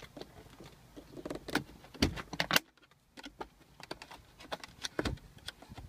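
Flathead screwdriver prying at the plastic overhead map-light housing of a first-generation Mazda 6: a string of sharp plastic clicks and scrapes as the retaining clips are worked loose, with a short pause about halfway.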